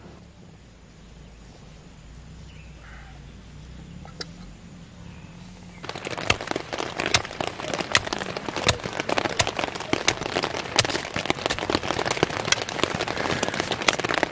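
Heavy rain pattering on a nylon tent fly, a dense, irregular patter of drops that sets in suddenly about six seconds in, after a low rumble of thunder in the first few seconds.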